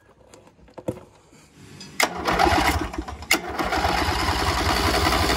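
Riding mower engine started about two seconds in, then running steadily, with a sharp click a second or so later. The run churns the freshly filled hydrostatic transmission oil.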